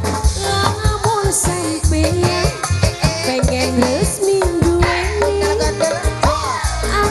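Live dangdut band playing: a wavering, gliding lead melody over a steady bass and a running pattern of drum strokes.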